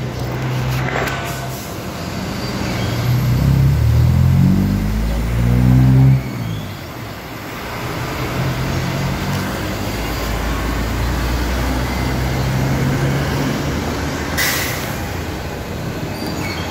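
Heavy truck engines at a toll gate: one pulls away with its engine note rising, then cuts off abruptly about six seconds in, after which engines run steadily at low pitch. A short hiss of air comes near the end.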